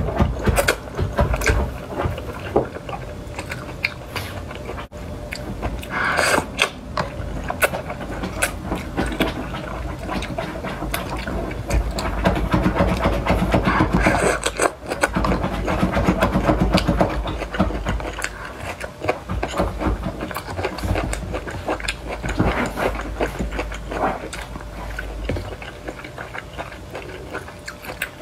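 Close-miked slurping and chewing of hot-pot noodles in broth: a dense, irregular run of wet mouth clicks and sucking sounds, louder in stretches.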